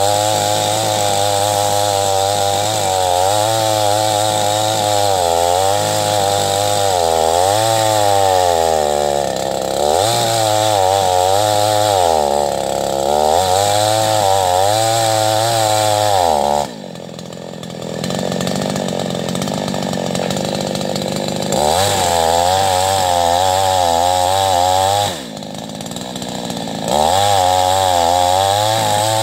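Chainsaw cutting into an agarwood tree, its engine pitch sagging and recovering again and again as the chain bites into the wood. About two-thirds of the way in it drops suddenly to idle, then revs back up. It idles briefly once more and returns to full throttle near the end.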